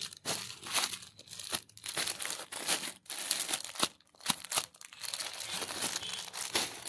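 Clear plastic packets of nighties being handled and shuffled, crinkling unevenly with a few short pauses.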